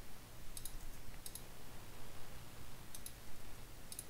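Computer keyboard keys and mouse buttons clicking: about four short double clicks, spread unevenly, over a faint steady low hum.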